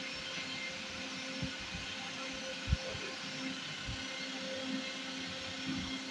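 Steady background hiss with a faint low hum, and a few soft low knocks as hands handle a homemade soldering iron while wrapping tape around it; the loudest knock comes a little under three seconds in.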